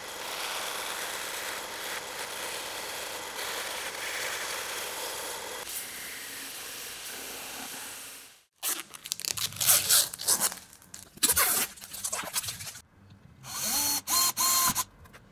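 A bandsaw cutting a polycarbonate sheet, a steady noise of blade and motor for about eight seconds. Then a belt grinder sanding the panel's curved edge in short, uneven bursts. Near the end a drill spins up twice, its whine rising in pitch, as it bores holes in the polycarbonate.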